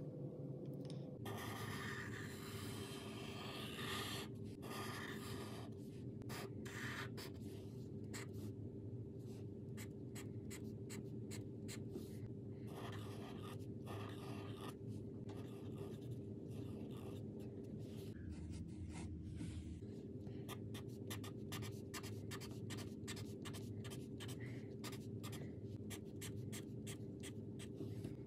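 Black Sharpie permanent marker drawing on paper: many short felt-tip strokes rubbing and squeaking across the sheet, coming in quicker runs near the end, over a steady low hum.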